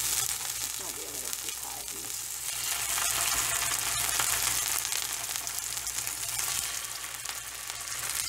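Hot coconut oil sizzling and crackling in a frying pan as raw chicken breast strips are laid in one by one, the sizzle swelling a little about three seconds in.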